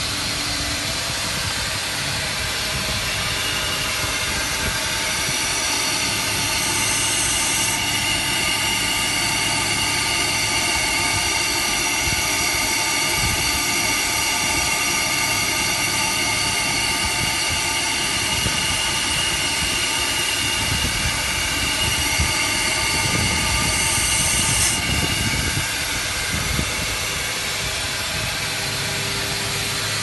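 Steady running noise of an industrial water-tube steam boiler plant under load, with steam at about 20 bar: an even rush of noise with several steady whining tones. A sharper, higher hiss swells briefly twice.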